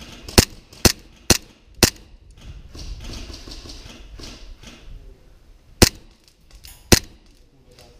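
Airsoft gun firing single shots, sharp loud cracks: four about half a second apart, then two more about four and five seconds later.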